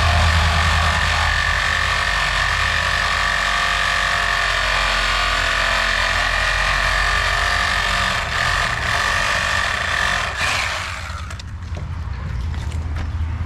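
Excavator's diesel engine running steadily under a loud hiss; the hiss cuts off about eleven seconds in, leaving the engine's low hum.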